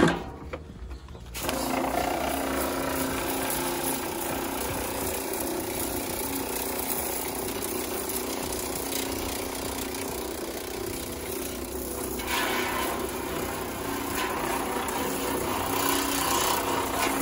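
A portable electric pressure washer starts about a second in and runs steadily with a hum, spraying a mix of cleaner and water onto a furnace blower wheel. The spray hiss gets louder about twelve seconds in.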